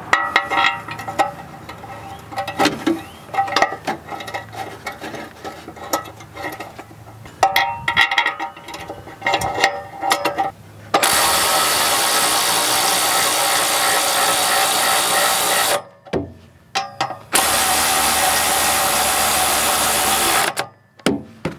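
Metal clinks and knocks as bolts and coil springs are fitted into an exhaust flange joint. Then a cordless ratchet runs twice, for about five seconds and then about three, driving the flange bolts in through their springs.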